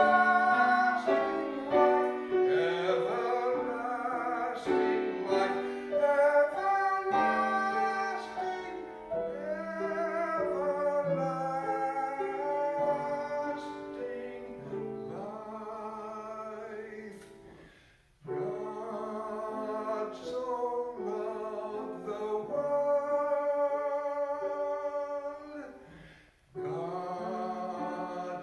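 Sacred music: singing, with female voices prominent, over piano accompaniment, in long held phrases that break off briefly twice, about two-thirds of the way in and near the end.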